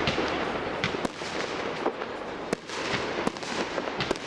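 Fireworks display: a dense, continuous crackle with sharp bangs of bursting shells, about five of them spread roughly a second apart.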